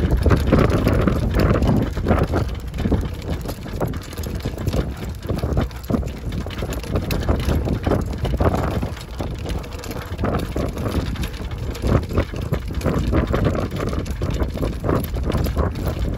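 Dog-pulled Sacco cart rolling over a paved road: a steady rumble from the wheels with frequent light rattles and knocks from the cart's frame and shafts.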